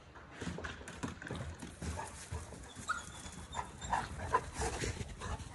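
A retriever puppy panting in quick, repeated breaths, with a few short high sounds mixed in.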